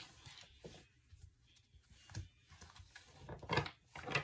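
A deck of tarot cards being shuffled by hand: a series of short papery rustles and taps, the loudest near the end.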